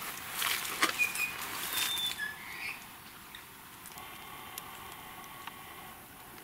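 Leaves and twigs rustling and snapping as someone pushes through dense brush, loudest in the first two seconds or so, with a few short whistled bird notes over it. After that it goes quieter.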